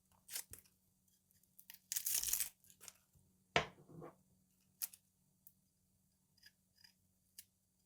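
Dry, papery onion skin being torn and peeled off by hand in short, scratchy rustles, with a single knock a little past halfway and only faint clicks near the end.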